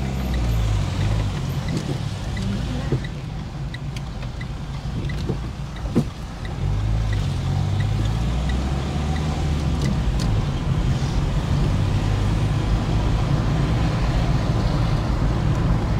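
Car engine and tyre noise heard from inside the cabin of a moving car: a steady low rumble.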